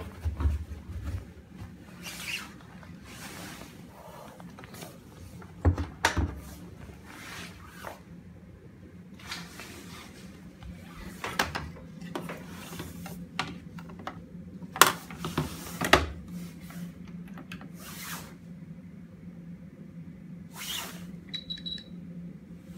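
Handling noises of front-loading Miele washing machines being set up: towels rustling into the drum, a series of knocks and clicks from the door and detergent drawer, the loudest a few seconds in and about two-thirds through. Near the end the program dial is turned and a short high beep sounds, over a steady low hum.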